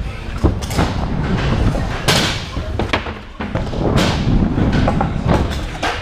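Stunt scooter rolling fast over skatepark ramps: steady wheel rumble broken by several sharp knocks and thuds as the scooter hits ramp edges and lands, with a louder rushing noise about two seconds in.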